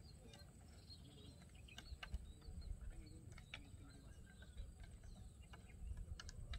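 Faint outdoor ambience: wind on the microphone, swelling about two seconds in and again near the end, with faint bird chirps and a few light clicks.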